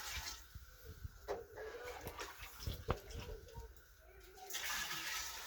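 Water being poured into a clay water pot (ensuwa), in two pours: one that stops about half a second in and another that starts near the end, with a few knocks in between.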